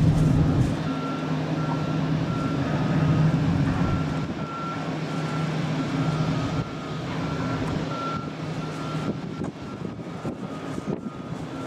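Patrol boat engines running at speed over rushing water and wind noise, the low engine hum slowly fading. A short high beep repeats at an even pace throughout.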